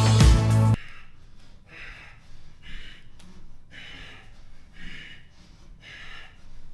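Background music that cuts off abruptly about a second in, then a man breathing hard through an ab workout, in evenly spaced breaths about one a second.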